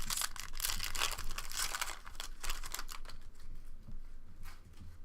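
Trading-card packaging and cards being handled up close: a dense crinkling and rustling for about two seconds, then lighter scratchy rustles and clicks.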